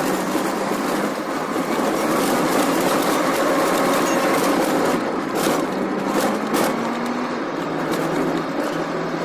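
Car engine running and road noise heard from inside the cabin while driving, the engine note rising a little about six to seven seconds in and then settling. A couple of short knocks come partway through.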